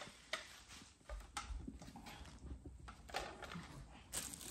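Several faint, scattered clicks and knocks of a plastic telescope accessory tray being handled and fitted onto a tripod's leg brace.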